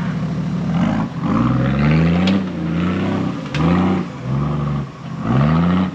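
Off-road 4x4 truck engine revving up and down in about five surges as the truck works up a steep muddy track.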